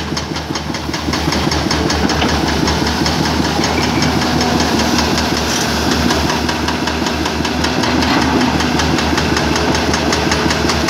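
Tata Hitachi EX200LC excavator's diesel engine running steadily up close, a loud, even engine pulse throughout.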